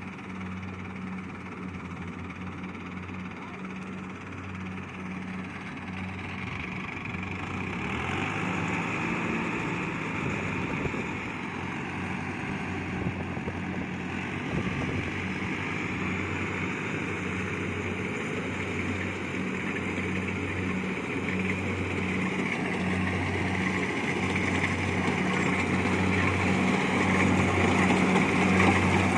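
Kubota DC70 Plus rice combine harvester running steadily under load, its diesel engine humming beneath the clatter and rush of the threshing and cutting machinery. The sound grows gradually louder toward the end.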